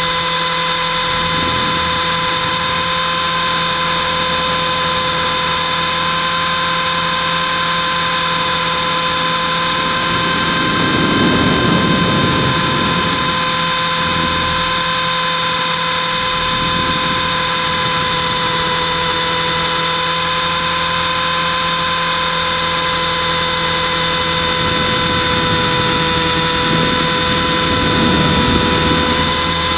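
T-Rex 450 clone RC helicopter's electric motor and rotor running in flight, a steady high whine heard from a camera mounted on the helicopter. Rushing noise swells up twice, about a third of the way in and near the end.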